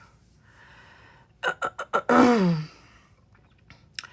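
A woman's voice: a few quick sharp clicks, then about two seconds in a loud, breathy wordless vocal sound whose pitch falls steeply, like a gasp or sigh.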